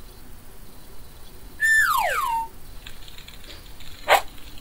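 A falling, whistle-like cartoon sound effect about half a second long, dropping steadily in pitch, partway through. Near the end comes a single short, sharp pop, with faint light clicking around it.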